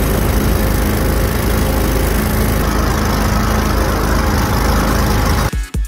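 Mud motor running steadily under way on a jon boat, a loud, even engine drone mixed with rushing wind and water. It cuts off suddenly about five and a half seconds in, and a few drum hits of intro music begin.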